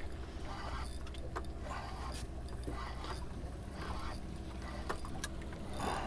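A steady low rumble with scattered light clicks and small rattles of fishing gear on a kayak.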